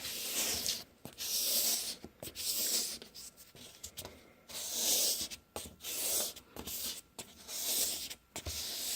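A hand-held abrasive pad scrubbing back and forth across a cloudy plastic headlight lens, in repeated strokes about once a second, to restore the foggy lens.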